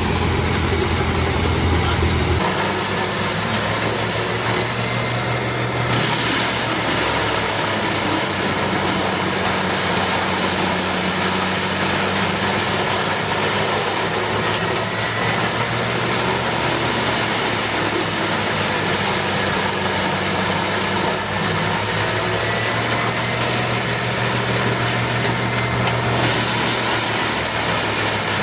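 Heavy machine running steadily: an engine drone under a constant noisy rush, with an abrupt change in the engine's tone about two seconds in.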